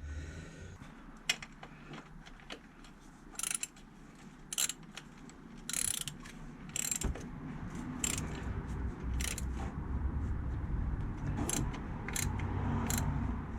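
Hand tools and bolts clicking and clinking on metal, about a dozen short, irregular clicks, as the air-con compressor mounting bracket is bolted to the engine block.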